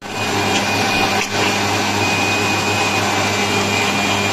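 Electric mixer grinder running steadily, its stainless steel jar blending chopped ripe mango on its own into a smooth purée. The motor gives a constant hum with a high whine over it.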